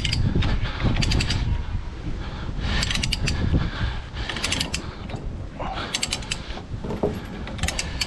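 Steel tie-down chain clinking and rattling in several short bursts as its links are handled and rolled over by hand.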